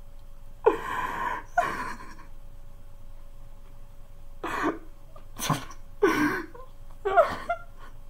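A man's laughter stifled behind his hands: about six short, breathy, explosive bursts with pauses between them, a faint steady tone underneath.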